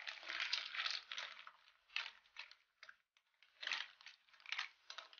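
A metal spatula stirring green mussels in their shells through coconut-milk sauce in a metal wok: the shells clatter and scrape against each other and the pan in irregular strokes, with a brief pause about three seconds in.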